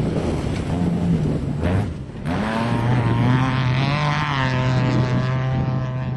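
Off-road race buggy engines passing at speed. One engine's pitch swings up and down. After a short dip about two seconds in, another engine comes in strongly, rises, then holds at a steady pitch.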